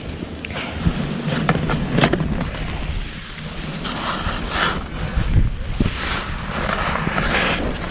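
Skis hissing through deep powder snow, with wind buffeting the camera's microphone; the rushing noise swells and fades unevenly as the skier turns.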